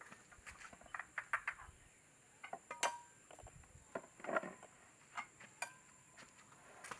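Scattered light clicks and clinks of tableware being handled, irregular and a few per second, over a faint steady high-pitched tone.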